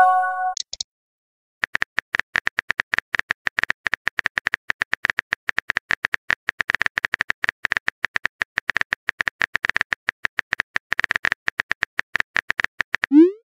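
Phone keyboard typing sounds: a rapid run of short clicks, several a second, as a message is typed out. A short chime of a few tones sounds at the very start as the previous message is sent.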